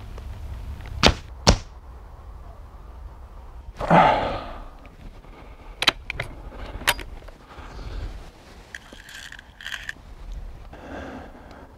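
A .177 Weihrauch HW97KT spring-piston underlever air rifle being shot and handled: two sharp cracks about a second in, and a louder, longer report around four seconds whose low end falls away. Sharper clicks follow, then light metallic clatter as pellets are picked from a tin near the end.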